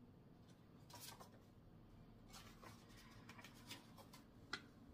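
Faint rustling and soft ticks of paperback book pages being leafed through, with a slightly sharper tick near the end.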